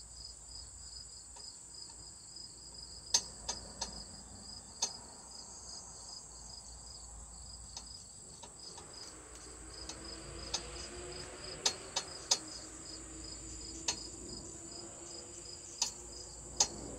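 Crickets chirping steadily in an even, pulsing rhythm. Scattered sharp clicks and rustling from hands working through soil and sweet potato roots, with a faint low hum joining about halfway through.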